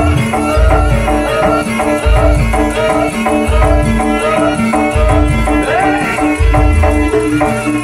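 Traditional Javanese gamelan music accompanying a barongan dance: heavy drum beats, a quick repeating pattern of struck pitched tones, and a wavering melody line above them.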